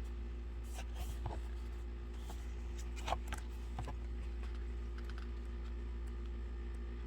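Light clicks, taps and rustles of a K-pop album's paper and plastic packaging being handled and opened, the sharpest click about three seconds in, over a steady low hum.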